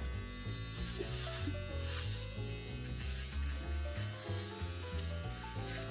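Small electric pet paw trimmer buzzing as it clips the fur between a dog's paw pads, with background music playing.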